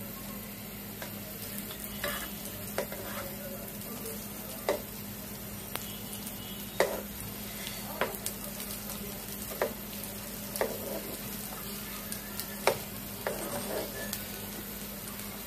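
Fish spring rolls sizzling steadily in hot oil in a nonstick frying pan, with a metal spatula clicking and scraping against the pan a dozen or so times as the rolls are turned.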